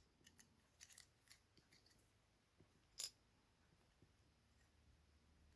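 Faint clicks from small plastic model parts being handled, a few light ones about a second in and one sharper click about three seconds in.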